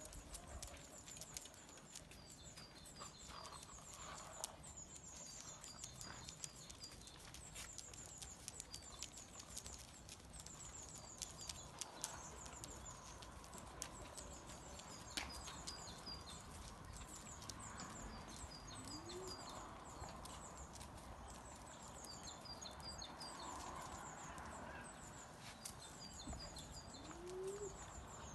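Small birds chirping faintly: short, high-pitched trilled phrases repeating every second or two.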